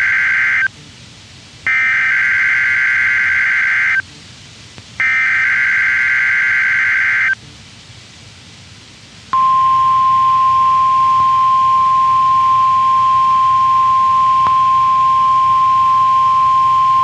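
NOAA Weather Radio broadcast of an EAS alarm test. It opens with the SAME header's digital data bursts: the end of one and two more warbling bursts of about two seconds each, with short gaps between them. Then, about nine seconds in, the steady 1050 Hz warning alarm tone begins.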